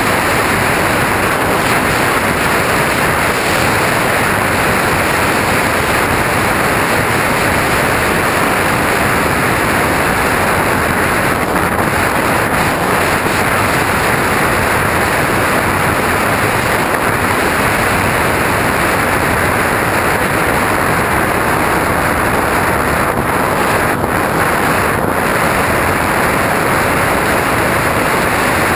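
Steady, loud rushing noise of an RC aircraft in flight, heard from a camera riding on it: wind buffeting the microphone, mixed with the aircraft's motor and propeller.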